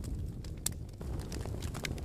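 Wood fire crackling: a steady low rumble of burning with scattered sharp snaps and pops, one louder snap just over half a second in.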